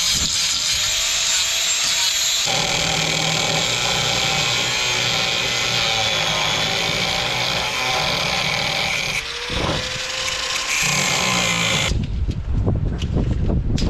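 A power tool running steadily with a dense, harsh noise. The sound changes abruptly a few times. About 12 seconds in it gives way to a low, uneven rumble.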